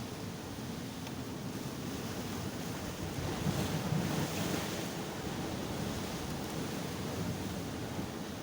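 Sea waves breaking and washing ashore, a steady rush that swells about three and a half seconds in, with wind buffeting the microphone.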